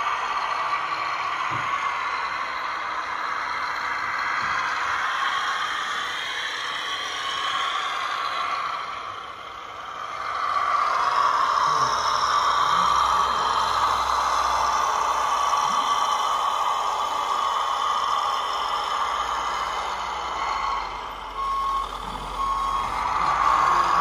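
RC truck running with a steady mechanical noise that dips briefly about a third of the way in. A reversing beeper sounds near the end as a series of short, evenly spaced beeps.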